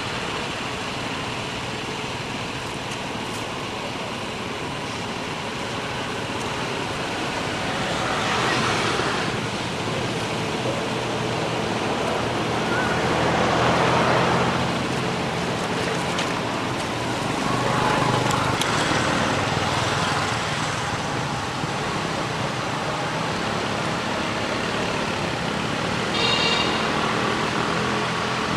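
Steady outdoor road-traffic background, with passing vehicles swelling and fading several times. A brief high-pitched call near the end.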